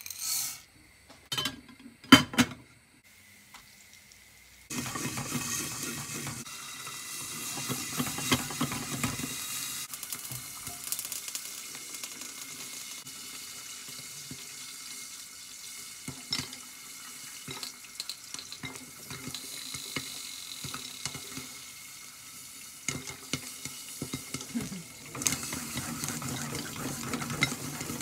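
Popcorn kernels tipped into hot oil in a stainless steel frying pan with a few knocks, then steady sizzling under a glass lid from about five seconds in, with scattered sharp pops that grow more frequent. Near the end it gets louder and busier as the pan of popping corn is shaken on the burner.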